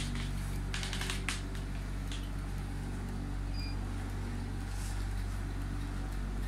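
Electric massage or vibration machine running with a steady low motor hum. A few brief clicks about a second in.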